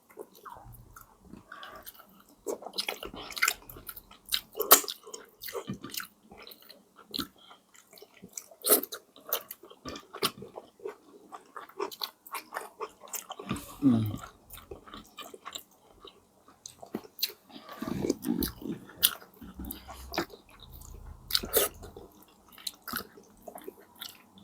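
Close-miked chewing and biting while eating, with many sharp, wet, crunchy clicks from the mouth.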